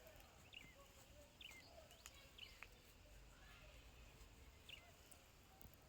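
Faint bird chirps: several short, high calls scattered through a near-silent rural background.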